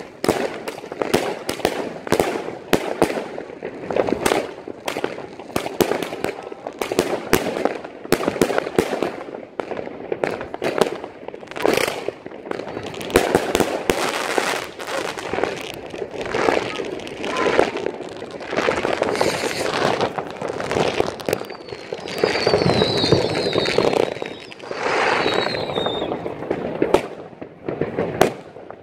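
Fireworks: rockets and firecrackers banging and crackling in rapid, overlapping bursts, many going off at once. Twice near the end, a high wavering whistle sounds among the bangs.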